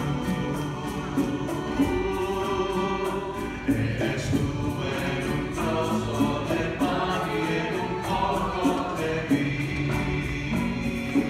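Small church music group singing a Spanish-language worship song together, accompanied by strummed guitar, over a steady beat.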